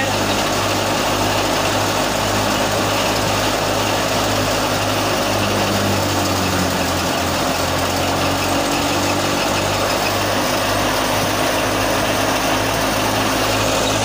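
Super National wheat thresher running steadily while threshing wheat: a constant low mechanical hum under a dense, even rushing noise.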